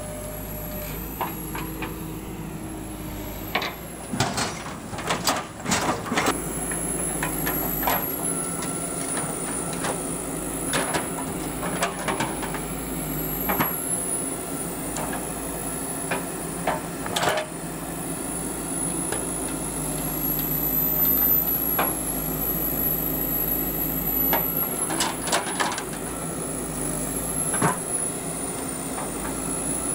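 JCB backhoe loader's diesel engine running steadily under hydraulic load while the backhoe digs soil and loads it into a tractor trolley, with frequent sharp clanks and knocks from the bucket and boom, some in quick clusters. A thin high whine wavers in pitch throughout.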